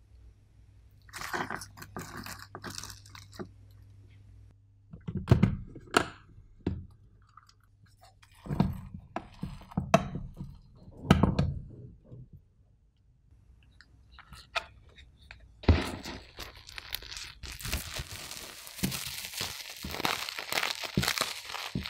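Scattered soft clicks and knocks of kitchen handling, with dull thumps as cooked rice is scooped from a rice cooker's inner pot with a plastic paddle. Through the last third, a steady crinkling of plastic wrap as cooked rice is squeezed into a ball in the hands.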